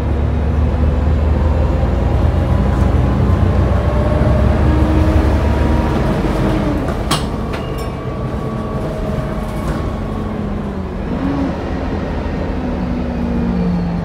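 Volvo B7TL double-decker bus in motion, heard from the upper deck: the diesel engine's steady deep rumble with a whine from the driveline that rises and falls. A sharp rattle about seven seconds in.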